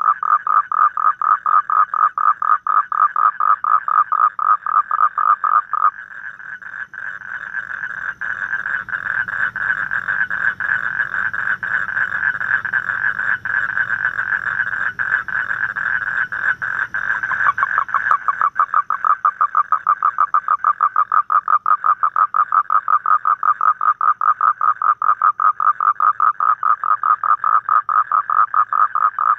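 Asian common toads calling in a fast train of pulsed croaks, several a second. From about six seconds in, the pulses run together into a dense continuous trill, then separate again about eighteen seconds in.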